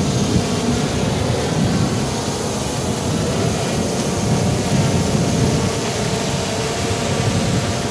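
Hubsan H501M quadcopter's brushless motors and propellers buzzing steadily in flight, over a low rushing noise.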